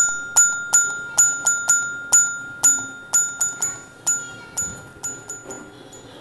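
Countdown timer sound effect: a quick, uneven run of bright chime strikes, all on the same note, about three a second, each ringing briefly. It stops shortly before the answer is given.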